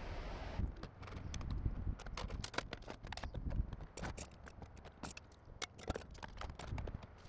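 A quick, irregular run of sharp clicks and taps over a low rumble of wind buffeting the microphone.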